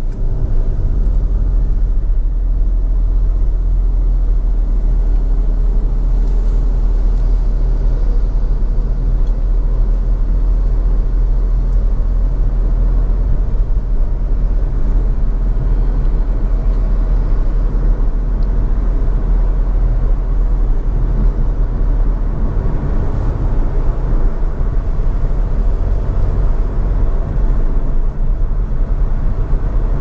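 A car driving at steady speed: a continuous low rumble of road and engine noise.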